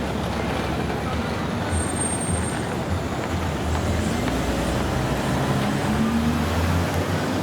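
Street traffic: vehicle engines running and tyres on the road, with a heavy vehicle's engine rising in pitch about four seconds in as it pulls away.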